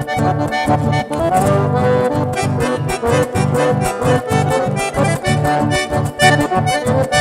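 Chamamé played live on a button accordion, a lively melody over a steady pulsing bass, with acoustic guitar accompaniment.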